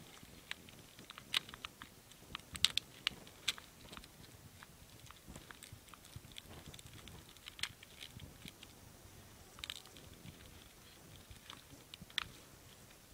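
Thin plastic sausage tray crackling and clicking as it is handled and the sausages are pulled out, a run of irregular sharp clicks, busiest a couple of seconds in.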